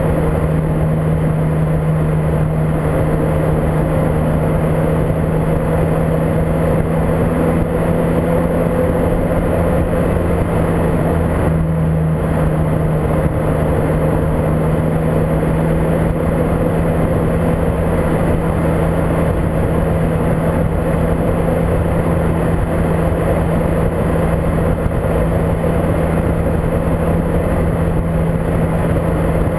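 Volkswagen Golf Mk5 GTI on the move: its 2.0-litre turbocharged four-cylinder engine drones at a steady pitch under heavy wind noise on the microphone.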